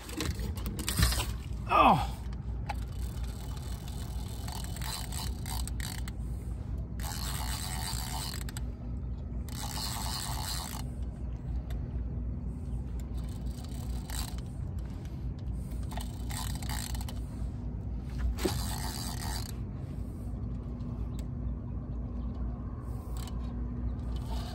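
Fishing reel's drag clicking fast and steadily as a hooked fish pulls line against it while the handle is cranked: the drag is slipping, so no line is being brought in. There are several louder runs of clicking, each a second or two long.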